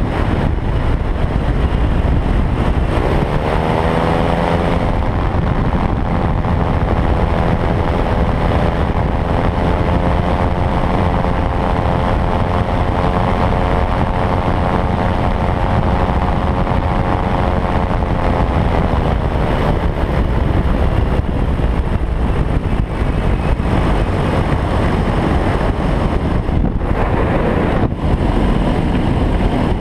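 Loud rushing wind over an open microlight trike cockpit, buffeting the microphone. A humming, whistling tone joins it about three seconds in, rising in pitch, holds steady, then falls away around twenty seconds in as the airspeed peaks near 130 km/h and drops again.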